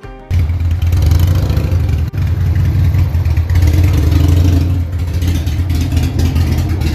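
Harley-Davidson V-twin motorcycle engine running loud and steady, with a deep low rumble.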